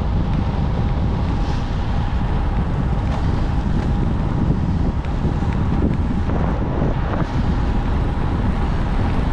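Wind buffeting the microphone of a GoPro on a moving road bike: a steady, loud rush heaviest in the low end.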